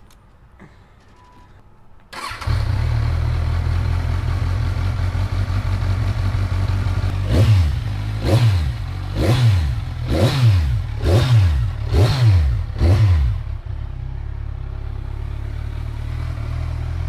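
Kawasaki Ninja 1000's inline-four engine cold-started about two seconds in, settling into a steady idle. It is then revved in seven quick throttle blips, rising and falling about once a second, before dropping back to idle. This is a cold engine on its first start.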